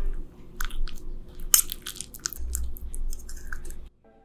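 Close-miked food sounds of a fork pressing into a fried egg on saucy jjapaguri noodles: a run of short, soft clicks and squishes that stops abruptly near the end.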